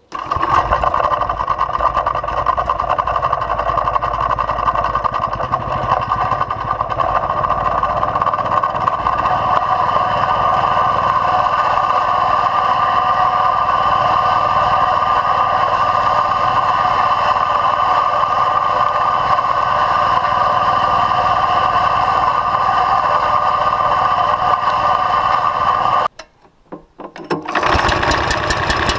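The 13 hp engine of a two-wheel tractor driving a cylinder lawnmower, running steadily. About 26 seconds in the sound breaks off for roughly a second and a half, then the engine is heard running again.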